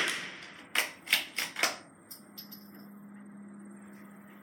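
The fading echo of a .22 LR rifle shot, then, under a second in, four quick metallic clacks about a third of a second apart, the rifle's action being cycled by hand to chamber the next round, followed by a couple of faint clicks.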